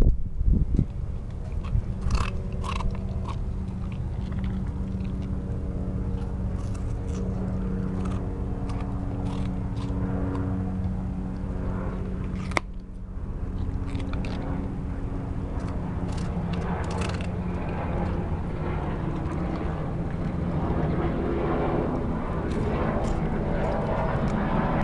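A corgi puppy chewing watermelon rind, with scattered short crunches and mouth sounds, over a steady low mechanical hum.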